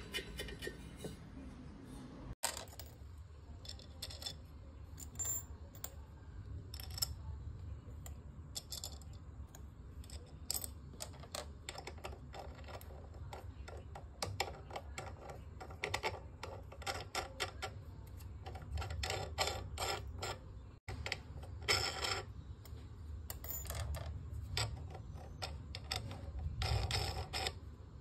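Small steel nuts and washers clinking and clicking as they are handled and threaded onto the studs of a scooter wheel rim and hub, with a steady low hum underneath.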